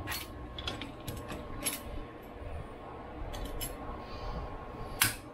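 Steel pliers clicking and clinking against the rusty universal-joint yokes of a double cardan driveshaft clamped in a bench vise: a string of sharp metal clicks, the loudest near the end.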